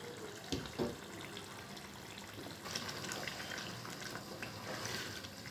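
A couple of soft knocks about half a second in. From about halfway through, a spatula stirs peas and potatoes in thin gravy in a wok: a wet sloshing with small scrapes and clicks.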